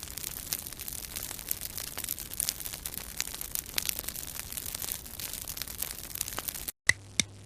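Steady crackling, static-like noise sound effect with scattered clicks. Near the end it cuts off abruptly, and sharp ticks begin at about three a second.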